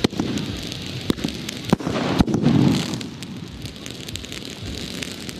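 Red flares and ground fountain fireworks burning: a steady crackling hiss with a few sharp pops, and a louder rushing swell about two seconds in.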